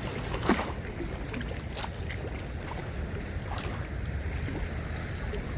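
Steady low rush of spillway water flowing hard, with wind buffeting the microphone. A single sharp knock stands out about half a second in.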